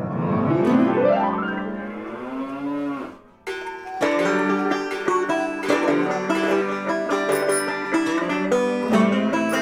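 A rooster crows once, a long drawn-out crow that rises in pitch, holds, and drops off after about three seconds. Plucked-string music then starts about three and a half seconds in and plays on.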